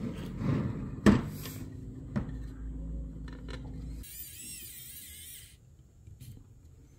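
Sharp plastic clicks, the loudest about a second in and another about two seconds in, as a clear plastic window piece is pressed into a model car body. Then, about four seconds in, an electric precision screwdriver runs for about a second and a half with a high wavering whine, driving a small screw into the model's plastic interior.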